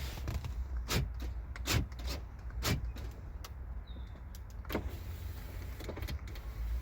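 2002 GMC Envoy power door lock actuators clunking as the locks are cycled, a series of sharp clunks about a second apart with a pause before the last, over a low steady rumble.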